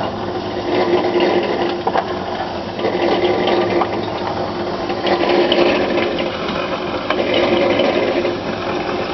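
Concrete mixer running as a ball mill, a steady motor hum with a dense, continuous rattle of the steel balls, nuts and rod tumbling in the drum with the incinerated chips.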